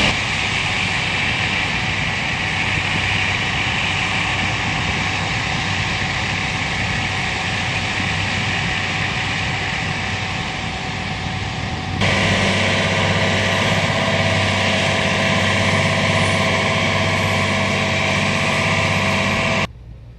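Heavy diesel farm machinery running steadily during a corn harvest. About two-thirds of the way through the sound changes suddenly to a louder engine note, then it cuts off abruptly near the end.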